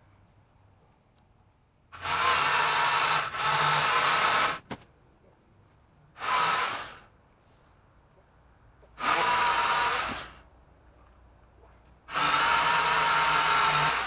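Electric pole saw running in four short bursts, its motor whining steadily while cutting and winding down in pitch each time the trigger is released.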